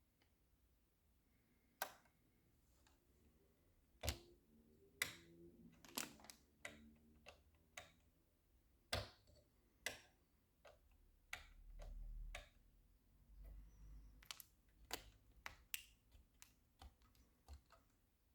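Irregular sharp clicks and light knocks from a motherboard and its packaging being handled, with two short low rubbing rumbles a little after the middle.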